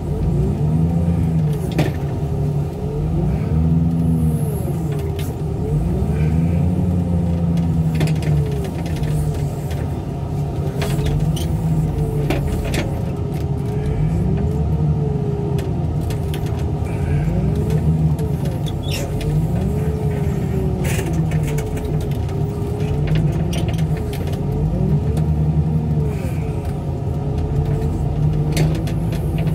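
Engine of heavy car-crushing machinery running under load, its pitch repeatedly sagging and recovering as the machine is worked, with scattered knocks and clanks of metal.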